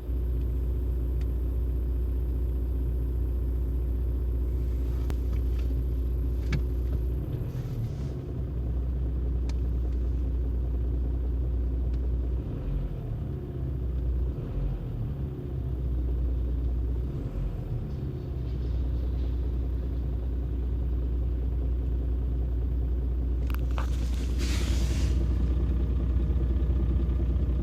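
Volkswagen 1.9 TDI 81 kW four-cylinder turbodiesel running steadily with a low rumble and a knock in the engine whose cause the owner cannot identify; he says it is heard well only inside the cabin. A few sharp clicks, and a brief rustling noise near the end.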